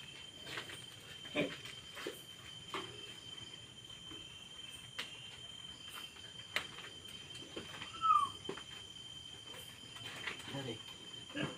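Sow and her newborn piglets making occasional short grunts and squeaks, with faint knocks between them; one clear high squeak about eight seconds in.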